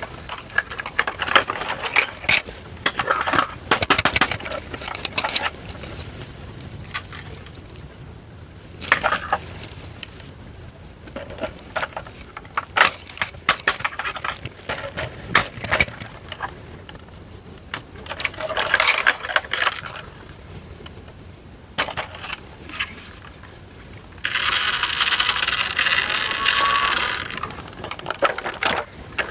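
A toy RC excavator's small electric motors and plastic gearboxes running in short spells, whirring with clicks and clattering knocks, and a steadier, louder whirring for a few seconds near the end.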